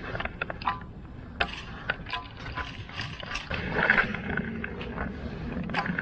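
Scattered clicks and knocks of fishing gear being handled aboard a kayak, over a steady low rumble of wind and water, with a louder stretch of handling near the middle.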